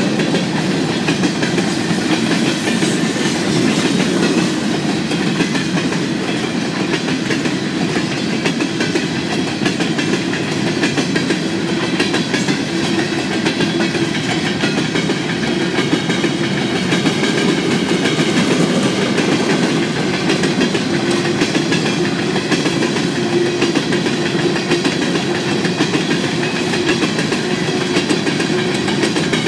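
Loaded covered hopper cars of a freight train rolling past, their steel wheels running steadily over the rails.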